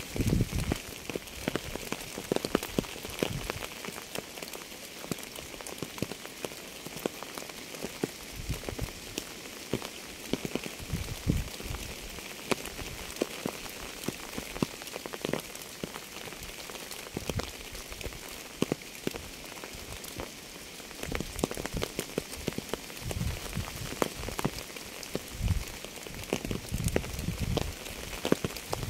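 Steady rain falling: a continuous hiss with many separate drops landing close by as sharp ticks, and now and then a dull low thud.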